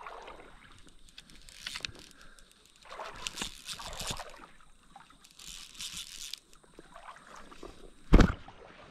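Shallow creek water sloshing and splashing in several short bursts as someone moves through it. There is a loud knock against the camera near the end.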